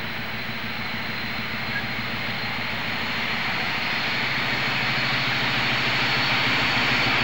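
Diesel locomotive engine running with a steady low drone, growing louder as the locomotive approaches.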